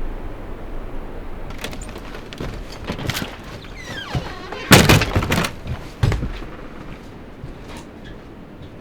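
A string of knocks and clunks with a short squeak, the loudest a heavy thud about five seconds in and another a second later, over a fading rush of wind noise.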